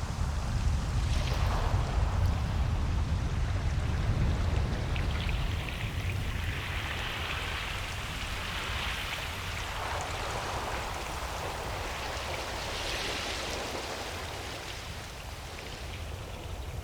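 Ocean surf washing onto a beach, its hiss swelling and fading several times over a steady low rumble.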